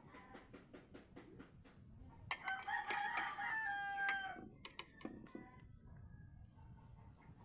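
A rooster crows once, a drawn-out call of about two seconds starting a little past two seconds in, holding its pitch and dropping at the end. Before it, a run of light clicks from a metal spoon in an aluminium pot.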